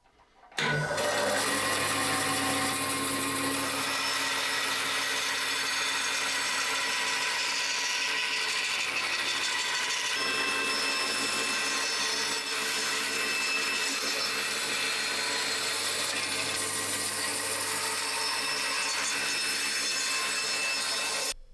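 Bandsaw running and cutting through a cast epoxy-and-wood handle blank, a steady whirring saw noise that starts about half a second in and stops just before the end.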